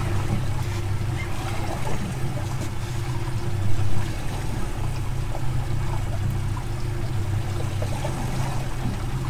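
Boat's outboard engines idling with a steady low hum, and water lapping and trickling.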